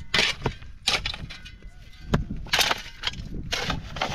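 A run of short, sharp cracking and crashing noises, about four or five in a few seconds.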